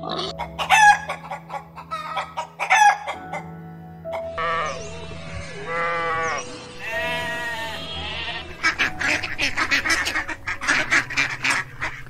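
Farm animal calls over background music: a pig's squeals and grunts in the first few seconds, then sheep bleating in wavering calls in the middle, then a fast run of short bird calls near the end.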